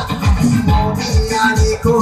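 A live band plays through a PA system: electric guitars and keyboard over a steady beat of deep kick-drum thuds, about four a second.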